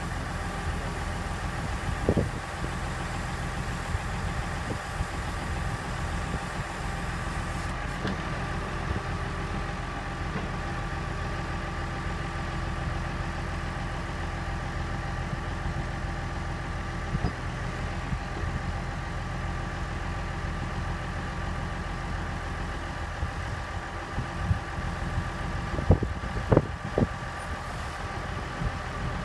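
Tractor engine running steadily while it powers a homemade HIAB-style crane as the boom is swung and lowered, with a steady high whine over the engine. A few sharp knocks come near the end.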